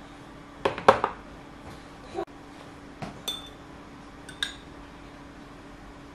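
Glass jars clinking against each other as they are handled, a quick cluster of sharp clinks about a second in. Later comes a metal spoon knocking against a glass jar as it scoops set yogurt, a few single clinks with a brief high ring.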